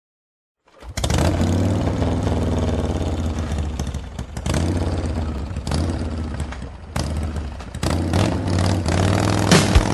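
Motorcycle engine running and being revved in a series of throttle blips, each surge starting suddenly and then falling back toward idle. Near the end a rock drumbeat comes in.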